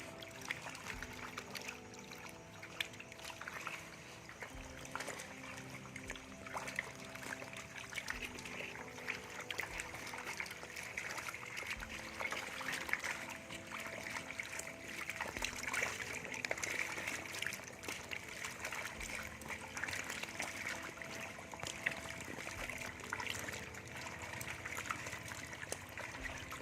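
Water trickling steadily, scattered with many small splashes and clicks.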